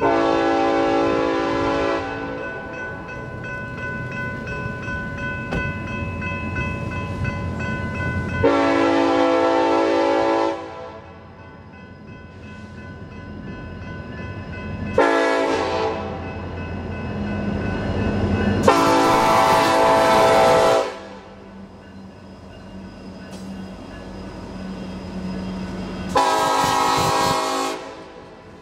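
A diesel freight locomotive's multi-chime air horn sounds five blasts: long ones at the start and about 8 s in, a short one about 15 s in, then long ones about 19 s and 26 s in. Between the blasts comes the steady low rumble of the EMD SD70M's two-stroke diesel and the rolling freight cars.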